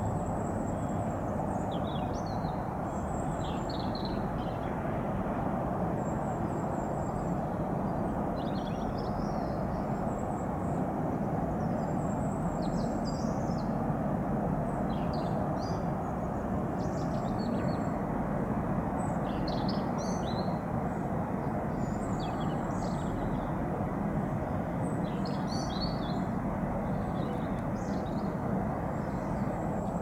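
Small birds chirping in short, repeated bursts over a steady low background rumble.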